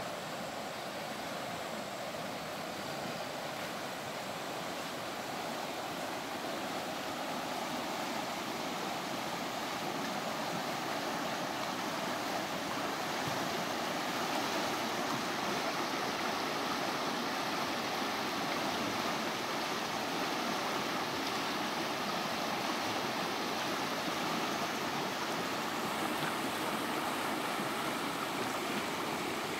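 Shallow river rushing over small rapids: a steady whoosh of running water that grows a little louder after about twelve seconds.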